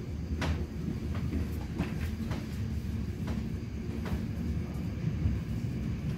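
Inside the passenger car of an ÖBB class 4020 electric multiple unit under way: a steady low rumble of running gear, with irregular sharp clacks of the wheels over the track about once a second.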